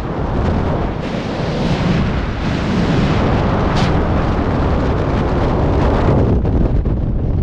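Loud, steady rush of freefall wind buffeting the microphone of a camera worn by a sit-flying skydiver.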